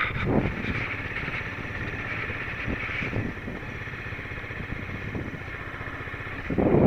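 Honda CBR250R's single-cylinder engine running steadily at low speed. Near the end, wind rushing over the microphone grows louder.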